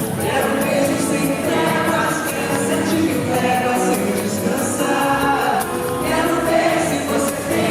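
Live concert music: a band playing with singing, several voices together.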